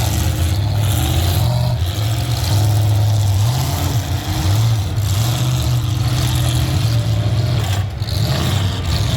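Loud truck engines revving, their pitch rising and falling unevenly as the demolition-derby trucks drive and push.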